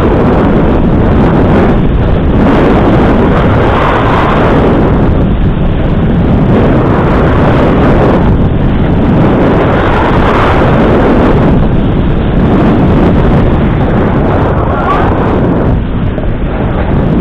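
Loud, steady wind noise buffeting an action camera's microphone during a ski run, holding near full level the whole time.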